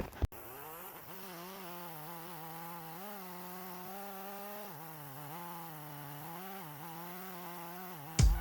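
Small engine of a power tool running steadily, its pitch rising and falling slightly.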